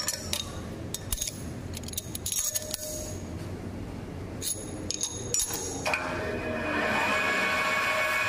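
Steel chuck key clinking against a four-jaw lathe chuck in a series of sharp metallic clinks, then about six seconds in the manual lathe starts and its spindle runs with a steady hum that grows louder a second later.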